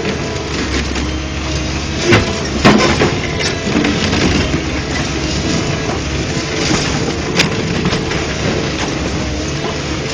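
Heavy excavator diesel engines running steadily under load during demolition, with sharp bangs and crunches of material breaking, loudest about two to three seconds in and again near seven seconds.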